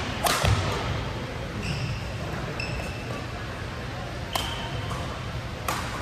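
Badminton rackets striking the shuttlecock: a few sharp cracks, spaced unevenly, with short high squeaks of court shoes on the floor between them.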